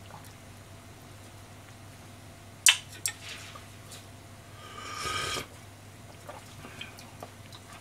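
A metal ladle clinks sharply against a pan of simmering onishime, followed by a smaller knock, then a brief watery sound about five seconds in as broth is worked with the ladle. A low steady hum runs underneath.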